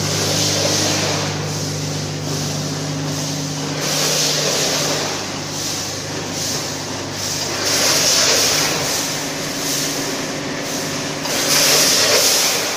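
Snack food packing line running: a 10-head multihead weigher feeding a vertical packing machine. A steady machine hum runs under loud bursts of hiss that repeat about every four seconds.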